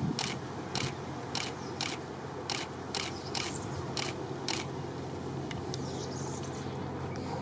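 Boeing 747 jet engines at takeoff power, a steady distant roar with a low hum. Over it runs a series of sharp clicks, about two a second, which stops about four and a half seconds in.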